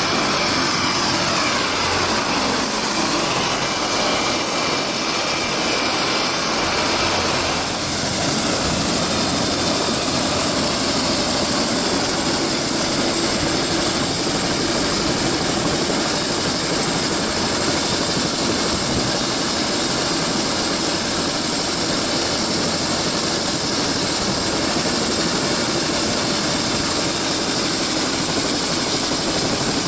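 Helicopter running close by, a steady loud engine and rotor noise; about seven seconds in the sound shifts and a high whine grows stronger.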